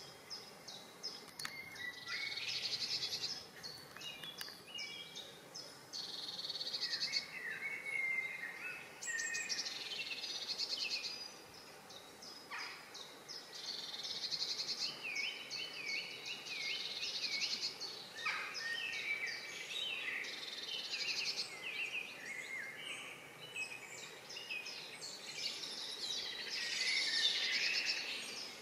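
Several songbirds singing over one another, phrase after phrase almost without a break, over a faint even hiss.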